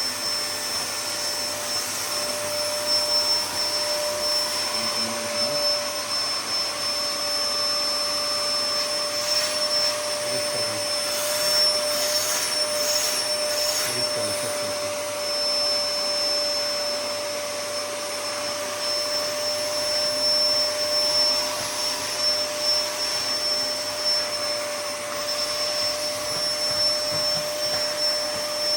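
Hoover Power Pro 2300-watt drum vacuum cleaner running steadily: a loud, even rush of air with a steady motor whine; the operating sound is a bit high.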